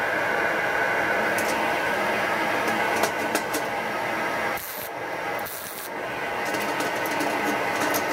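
A steady mechanical whir from shop machinery, with a few light clicks as metal parts are handled, about three seconds in; the whir drops briefly about halfway through, then returns.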